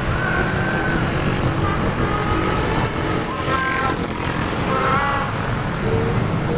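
Motorbike engines and wind rushing on the microphone while riding among dense motorbike traffic, with a few brief pitched sounds rising above the rumble.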